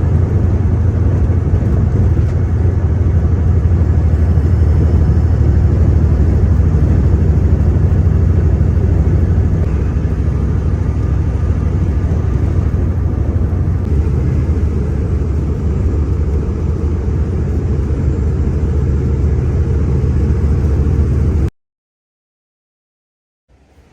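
Detroit Diesel Series 60 14-litre inline-six diesel of a 2005 Freightliner Century semi truck running steadily with a deep, low exhaust note. It cuts off abruptly near the end.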